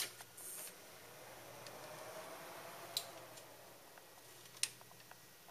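Newly built Intel Core i7 desktop PC powering on: a click from the power button, then the fans spinning up with a faint hum that rises and falls back as the machine starts. Two sharp clicks, one near the middle and one near the end.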